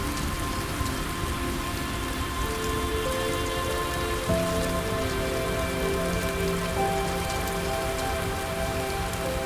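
Steady rain, with soft ambient music of long held notes over it; new notes come in a few times.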